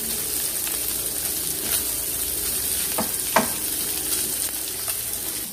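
Diced meat sizzling as it fries in a nonstick wok, stirred with a wooden spatula, with a couple of sharp spatula knocks against the pan a little past the middle.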